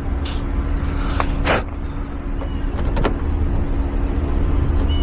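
Steady low hum of a running vehicle, with a few sharp clicks and taps in the first three seconds.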